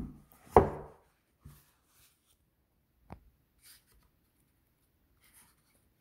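Handling noise from a pan of baked sweet potatoes: one loud knock about half a second in, then faint rubbing and a light click as a sweet potato is picked up.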